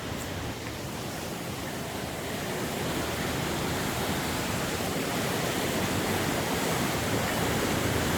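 Strong wind blowing hard across the microphone in a steady rush of noise, gusting louder about three seconds in.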